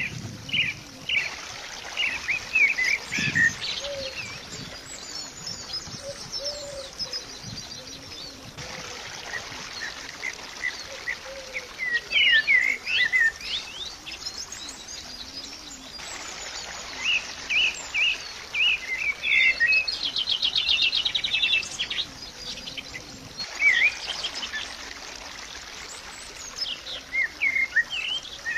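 Small birds chirping and twittering in short high calls over a faint steady hiss, with a fast trill about two thirds of the way through.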